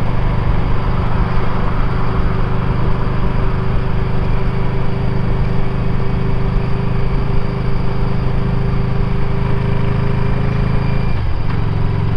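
Yamaha DragStar 400's air-cooled V-twin running steadily while riding at low speed in town. The engine note dips briefly about eleven seconds in, then picks up again.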